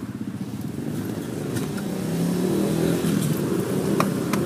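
A motor vehicle engine running and growing louder, with a few sharp clicks over it.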